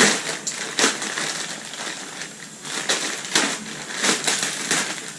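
Plastic mailer bag crinkling and ripping as it is torn open by hand: a string of sharp rips and rustles.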